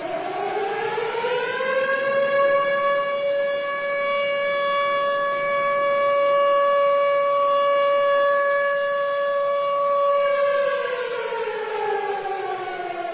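Civil defense siren sounding the 10 November commemoration signal for Atatürk. It climbs in pitch over the first couple of seconds, holds one steady wailing tone for about eight seconds, then winds down in pitch near the end.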